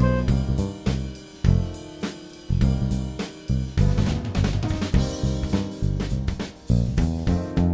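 Music with a full drum kit playing a steady beat of bass drum, snare, hi-hat and cymbals over bass and chords.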